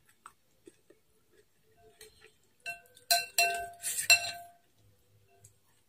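Metal spoon and chopsticks clinking against a bowl of noodle soup, about five quick clinks in a cluster from a little before three seconds in to just past four, each ringing briefly.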